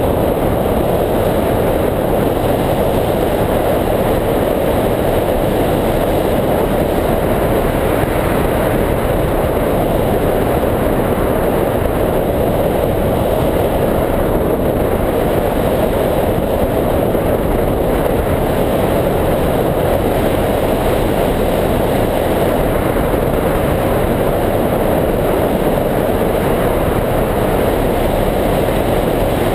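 Steady, deep rush of wind from the airflow past a wing-mounted camera on a hang glider in flight.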